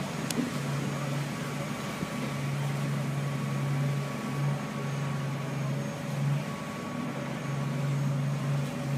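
Boat engine running with a steady low hum, heard from aboard. The hum dips briefly every second or two.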